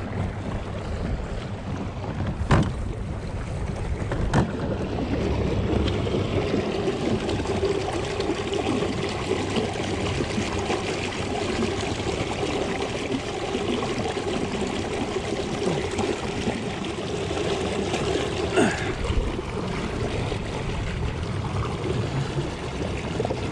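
Water trickling and lapping against a fishing kayak's hull as it moves, a steady wash with three short knocks on the hull or gear spread through it.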